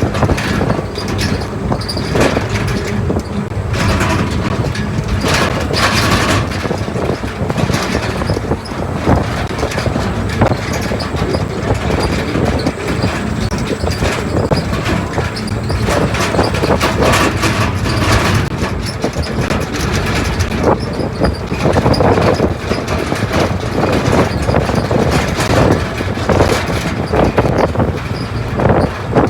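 Turboprop airliner cabin noise: the engines and rushing air make a loud steady din, with irregular rumbling and rattling surges.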